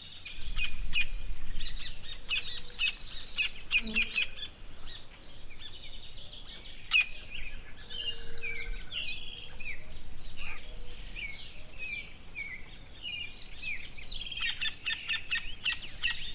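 A chorus of several wild birds calling and singing: many short chirps and sliding whistled notes overlapping, over a steady high-pitched drone.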